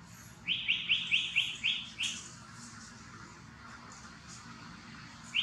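A bird calling: a fast run of about seven sharp, repeated high notes lasting about a second and a half, with fainter high chirps around it.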